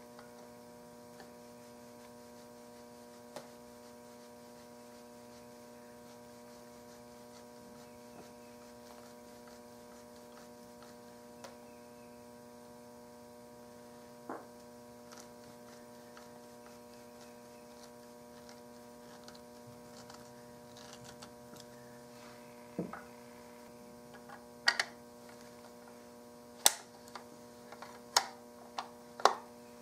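A steady electrical hum, with occasional faint ticks as a screwdriver turns the action screws of a Mauser rifle. In the last several seconds come a series of sharp clicks and knocks as the metal barreled action is lifted out of the walnut stock.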